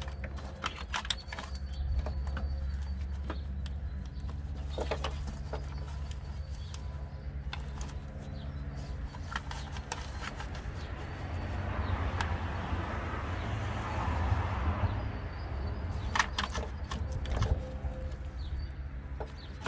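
Gloved hands working among plastic cowling and a wiring loom in an engine bay make scattered clicks and taps, with a longer rustling scrape past the middle. A steady low hum runs underneath.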